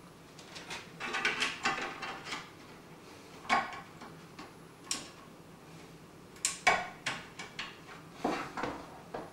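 Power cable being worked into the back of a desktop PC case: irregular plastic and metal clicks, knocks and rattles in several short clusters, the sharpest about three and a half and six and a half seconds in.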